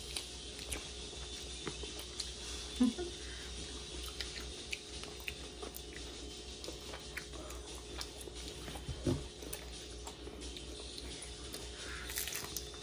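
Quiet eating at the table: scattered small clicks and faint chewing of crispy egg rolls over a steady low hum, with two short louder sounds about three and nine seconds in.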